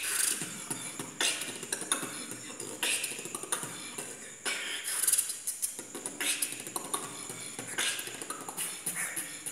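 Solo human beatboxing: mouth-made drum sounds, with sharp snare-like hits about once a second among quicker clicks and hissing hi-hat sounds.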